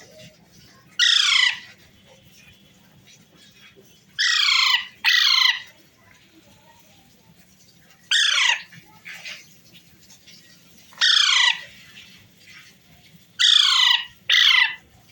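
Pet parrot giving seven loud, harsh squawks, each about half a second long and falling in pitch. They come a few seconds apart, twice in quick pairs.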